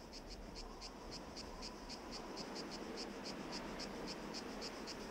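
Cricket chirping in a steady, even rhythm, about five short high chirps a second, over a low background rumble.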